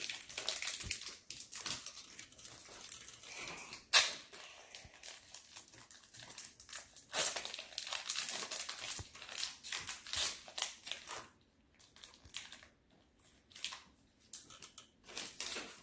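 Foil wrapper of a Pokémon card booster pack crinkling and tearing as it is opened by hand, in irregular crackles with one sharp crack about four seconds in; the crackling thins out near the end.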